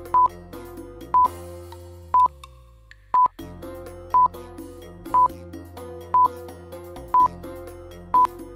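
Countdown timer sound effect: a short, high beep once a second, nine in all, over soft background music. The music drops out briefly about three seconds in.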